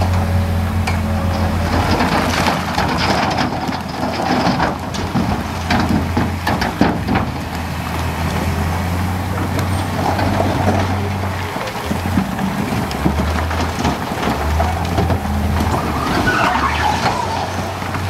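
Heavy diesel engine of earthmoving machinery running steadily under load, its note wavering between about 11 and 16 seconds in, with stones clattering and scraping, most busily in the first half.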